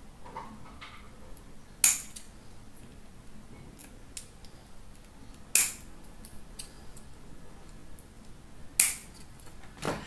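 Scissors snipping insulation paper for a ceiling-fan stator's slots: three sharp snips a few seconds apart, with faint paper handling ticks between them.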